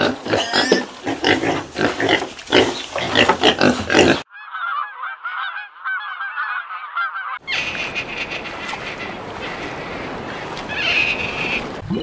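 A flock of geese honking loudly for about four seconds. Then a cut to many quick, high chirping calls, and then a steady hissing noise.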